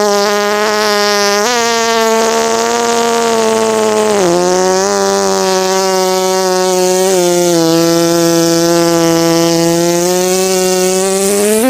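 A long, drawn-out fart sound effect: one unbroken pitched tone lasting about twelve seconds, stepping a little lower in pitch a few times, with a brief waver near the end.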